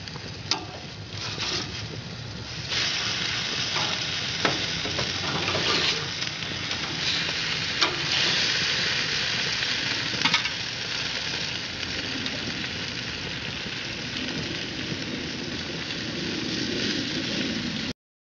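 Hoisin-basted turkey breast tenderloins sizzling on a hot grill grate, a steady hiss with a few sharp pops and clicks. The sound cuts off suddenly near the end.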